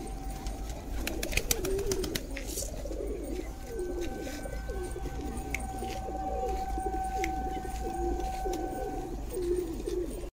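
Domestic fancy pigeons cooing: a flock's overlapping low, rolling coos repeating without pause. A few sharp clicks come in the first couple of seconds, and a thin steady tone sits behind the cooing.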